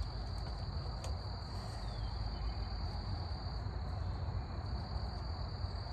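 Steady high-pitched insect chorus, over a low background hum.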